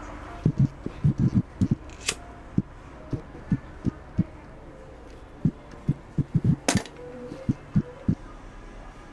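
Irregular soft low knocks and taps as a leather card wallet and small tools are handled on a work block. Two sharp clicks stand out, one about two seconds in and one near seven seconds. The first fits a disposable lighter being struck.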